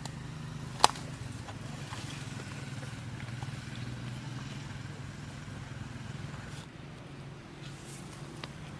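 A steady low engine hum, with one sharp click about a second in.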